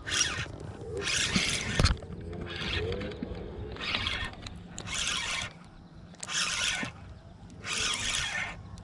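Fishing reel whirring in short bursts about every second and a half as a hooked bass is worked up out of thick grass.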